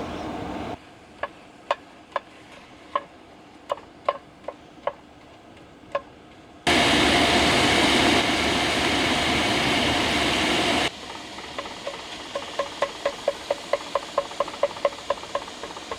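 A cooking utensil clicks and taps against a pan, first irregularly, then in a quick regular run of about three to four taps a second, typical of breaking up ground meat while browning it. In the middle, a loud steady hiss starts and stops abruptly and lasts about four seconds.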